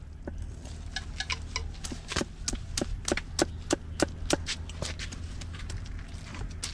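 Light, quick strokes of a large fish-cutting knife against a section of fish: a run of sharp ticks, a few a second.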